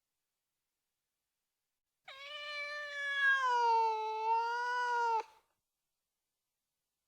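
A tomcat giving one long, drawn-out meow of about three seconds, its pitch dipping in the middle before it cuts off abruptly.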